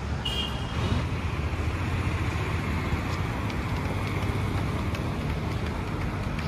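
Steady road-vehicle and traffic noise with a low rumble, and a brief high-pitched tone near the start.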